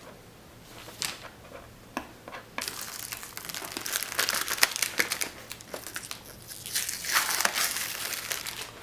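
Packaging on the Magic Keyboard's box being broken open: a few sharp clicks, then about six seconds of continuous tearing and crinkling as the seal is pulled off and the wrapping is handled.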